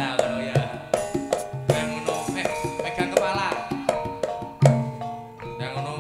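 Javanese gamelan music for a tayub dance: kendhang hand drums play frequent sharp strokes, with an occasional deep stroke, under ringing metallophone notes and a melodic line that bends in pitch.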